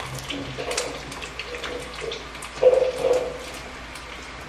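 Food frying in hot oil: a steady sizzle scattered with small crackles and pops, with one louder burst about two and a half seconds in.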